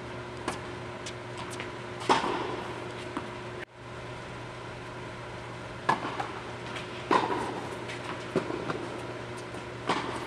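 Tennis balls struck by rackets in a doubles rally on an indoor court: a handful of sharp pops, each ringing briefly in the big hall, with lighter ticks between them. A steady low hum runs under it all.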